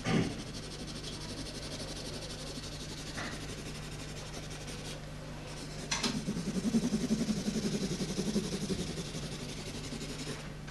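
A green pen scratching over a drawn plan in quick back-and-forth strokes as an area is shaded in, louder from about six seconds in where it starts with a tap. A steady low hum runs underneath.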